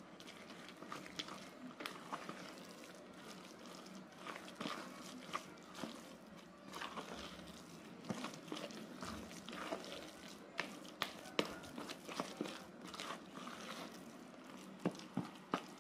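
Orange plastic spoon stirring a crumbly mix of grated cassava, flour and egg in a pink plastic bowl: faint, irregular scraping with small clicks of the spoon against the bowl.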